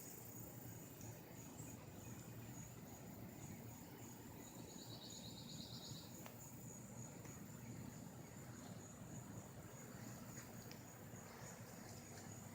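Near silence: a faint steady low hum and a thin high whine, with one brief high chirping trill about five seconds in.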